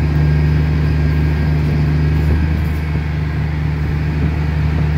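Case IH MX255 Magnum tractor's six-cylinder diesel engine running steadily, heard from inside the cab as the tractor creeps forward.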